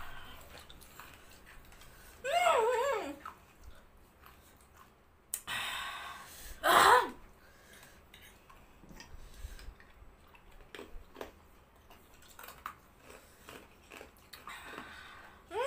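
People eating very spicy Korean instant noodles: soft chewing, with pained vocal reactions to the chilli heat, a wavering moan about two seconds in, a long hiss of breath around five seconds, then a short loud cry near seven seconds and another at the end.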